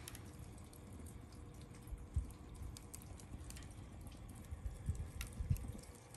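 Wood fire in a steel fire pit crackling faintly, with scattered sharp pops from the burning logs and a few soft low thumps.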